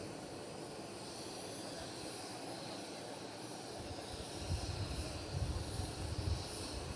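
Steady noise of a jet aircraft engine running, with a faint high whine. Low rumbling joins from about four seconds in.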